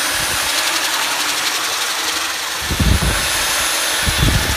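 Electric belt sander running on a glued-up hardwood panel with light pressure, knocking dried glue off the surface, a steady loud abrasive whir. Two short low thumps come about two-thirds of the way through and again near the end.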